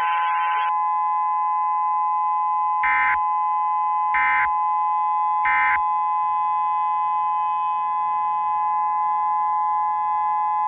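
Emergency Alert System signal: a steady two-pitch electronic alert tone, with three short data bursts laid over it about 1.3 seconds apart, starting about three seconds in, like the SAME end-of-message codes that close an EAS alert.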